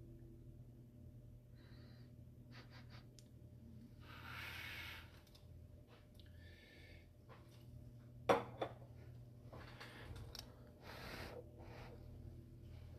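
Low steady hum under faint handling noises and breath-like hisses, with a sharp click a little after eight seconds and a smaller one just after.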